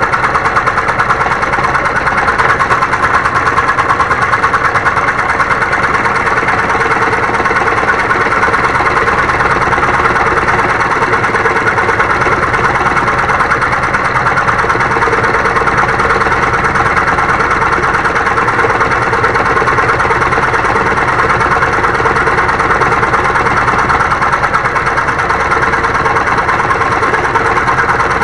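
Homemade scroll saw running steadily, its blade moving rapidly up and down as it cuts wood.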